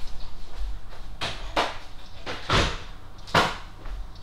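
Clear plastic cutting plates of a die-cutting machine being handled and set down: four sharp knocks and clacks, the later two the loudest.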